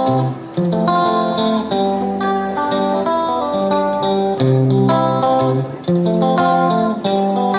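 Background music: plucked guitar notes and chords.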